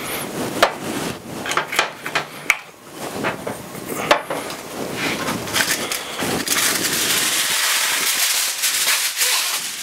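A spatula scraping and clicking against a metal cup as a spice paste is stirred, then aluminium foil pulled off the roll, crinkling in a steady high rustle through the second half.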